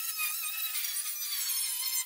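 Electric angle grinder cutting through thin sheet metal: a steady, high-pitched whine with wavering tones as the disc bites into the panel.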